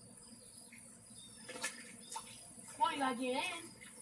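A hand swishing water in a plastic kiddie pool, under a steady high chirring of insects. About three seconds in, a woman's voice sounds once, a short wordless call that bends up and down.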